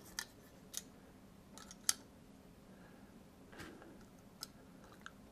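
Faint, scattered small clicks and taps, about six in all with the loudest about two seconds in, from handling a Raspberry Pi Zero and hotspot-modem circuit-board stack and working its mounting screws with a small screwdriver.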